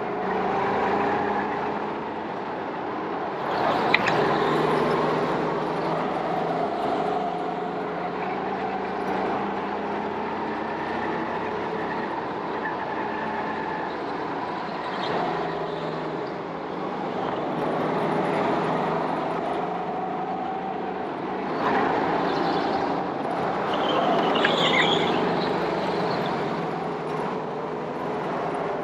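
Go-kart motor running, its pitch rising and falling as the throttle opens and closes through the corners. There is one sharp knock about four seconds in.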